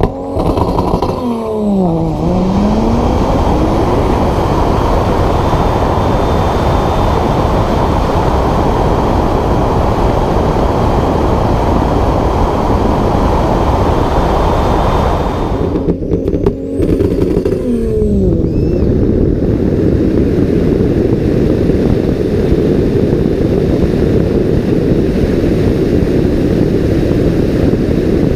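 Loud, steady wind and road rush on a camera mounted on the outside of a Tesla Model S P85D during a quarter-mile drag pass. An engine note sweeps down and then back up about two seconds in, and again about sixteen seconds in.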